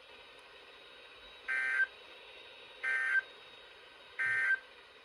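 Three short bursts of Emergency Alert System SAME digital data tones, a warbling two-tone screech, spaced about 1.3 s apart over faint hiss. These are the End of Message (NNNN) code that closes a National Weather Service severe thunderstorm warning broadcast.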